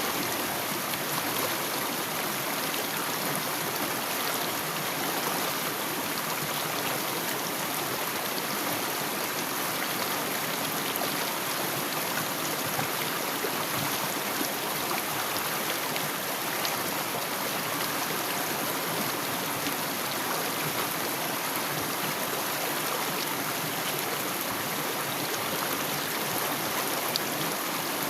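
Water of a mountain stream flowing steadily, an even, unbroken trickling rush.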